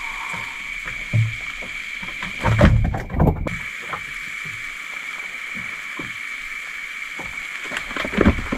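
Knocks and clunks of fishing gear and a plastic cooler being handled aboard a small boat, loudest in a cluster a few seconds in and again near the end, over a steady high-pitched hiss.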